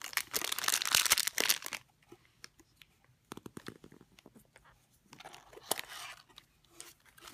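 Plastic and foil toy packaging crinkling as it is picked up and handled, in two loud rustling spells with scattered light clicks and taps between them.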